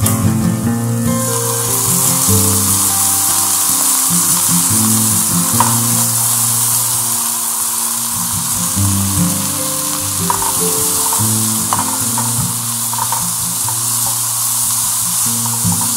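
Hot oil in a frying pan sizzling loudly. The sizzle rises sharply about a second in, as water is poured into the pan of stir-fried shallots, garlic, chillies and lemongrass, and it stays strong while fried tempeh cubes are tipped in and stirred. Soft background music plays underneath.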